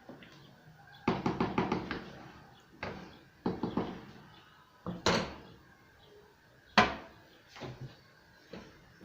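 Kitchen utensils knocking: a quick run of knocks about a second in, then scattered single knocks and short clatters, the sharpest about seven seconds in.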